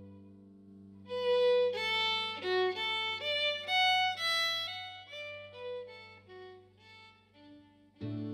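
Background music: a fiddle plays a quick melody over a held low drone chord, and a new low chord comes in sharply near the end.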